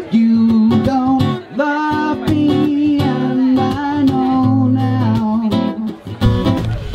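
Background music: a song with strummed acoustic guitar and a singing voice holding long notes.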